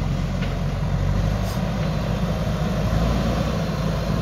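Diesel engine of a JCB backhoe loader running steadily as the machine drives forward over loose soil, a low rumble.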